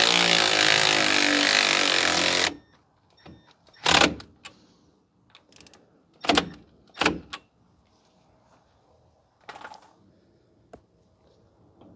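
Cordless power tool spinning a fastener in, running for about two and a half seconds and then stopping sharply, just snugging it before it is torqued. A few sharp knocks follow, around four, six and seven seconds in, with a lighter one near ten seconds.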